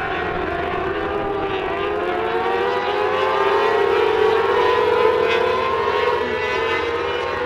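Several mini sprint race car engines running hard as the pack laps the dirt oval. Their overlapping pitches glide up and down as the cars accelerate and pass, loudest about four to six seconds in.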